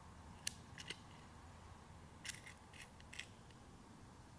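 A disassembled multimeter being handled: about six faint, sharp clicks and taps of its small parts, over a low steady hum.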